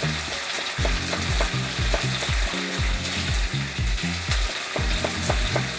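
Steak frying in a hot pan, with a steady sizzle, and a few light knocks about a second in and again near the end.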